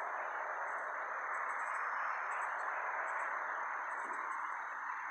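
Steady hiss of outdoor ambience with insects chirping in short, very high-pitched pulse groups that repeat every second or less.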